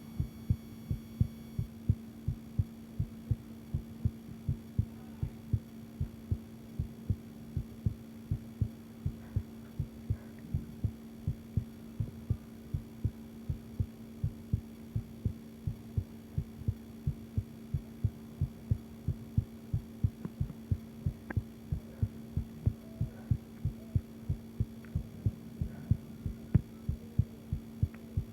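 A woman's heartbeat, recorded close up: regular low thumps that keep an even beat throughout, over a steady low hum.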